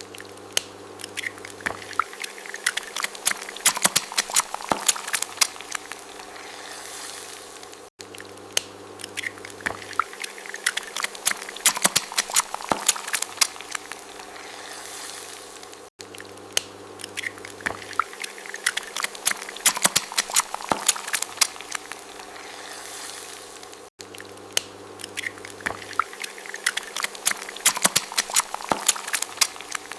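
An egg frying in hot oil, crackling and spitting with many sharp pops, over a low steady hum. The same eight-second stretch of sound repeats over and over.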